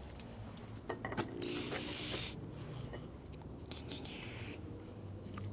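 A rag wiping grime off bicycle parts: a few light metal clicks about a second in, then two short bursts of rubbing.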